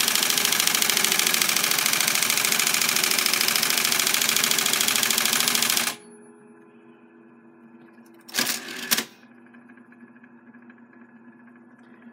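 Olympia electric typewriter striking the paper in a fast, even, machine-gun-like repeat that cuts off suddenly about six seconds in. Its motor then hums steadily, with a brief loud mechanical rattle about two seconds later.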